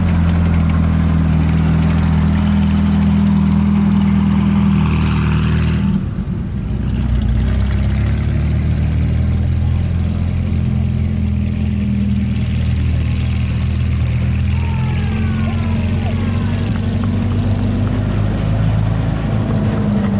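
Engine of an M4 Sherman tank running as it drives past; about six seconds in, the sound cuts to the engine of an M8 Greyhound six-wheeled armoured car running steadily at low speed.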